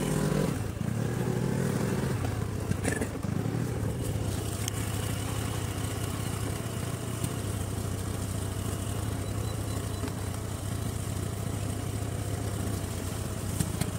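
A vehicle engine running steadily, an even low hum.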